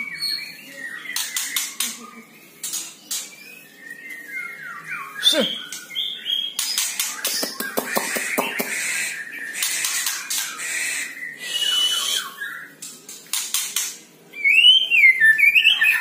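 White-rumped shama singing in short bursts of whistles and chatter, mixed with many sharp clicks. A louder run of rising and falling whistles comes near the end.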